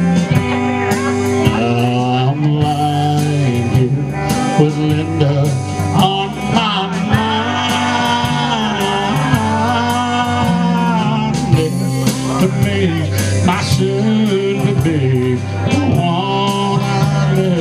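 Live country band playing an instrumental passage of a slow ballad, with electric guitars, bass and pedal steel guitar; sliding notes carry the lead about halfway through.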